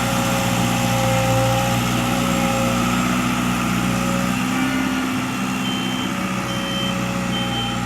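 Vehicle engine running steadily. In the last couple of seconds a short high beep repeats about once a second, like a reversing alarm.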